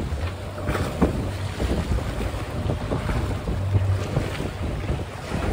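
Wind buffeting the microphone over the rush and splash of water aboard a sailboat under way, a heavy low rumble with irregular gusts.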